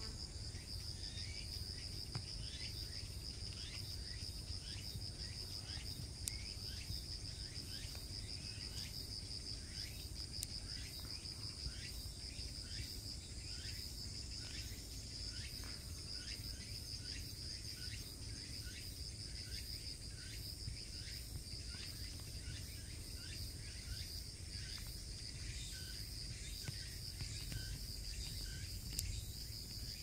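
Insects singing in woodland: a steady high-pitched trill, with short falling chirps repeating about twice a second over it and a low steady rumble underneath.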